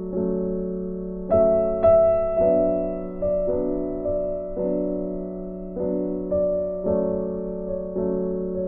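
Background music: slow, gentle piano, notes struck about once a second and left to ring and fade.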